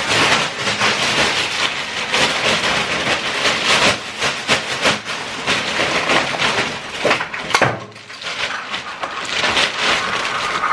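Plastic takeout bag rustling and crinkling as a hand rummages in it and lifts it, with a short lull about eight seconds in.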